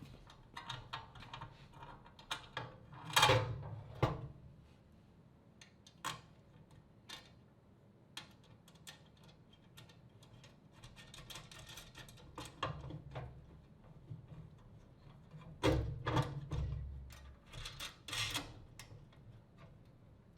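Irregular knocks, clicks and clanks of metal parts and hand tools being handled, with a few louder clanks about three and four seconds in, and again near the end.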